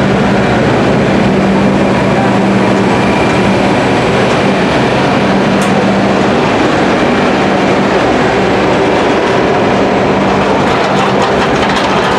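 Reading and Northern excursion train's riveted steel passenger coaches rolling past as the train pulls in, making a loud, steady noise of wheels on rail. A steady hum in the first half fades out about halfway through.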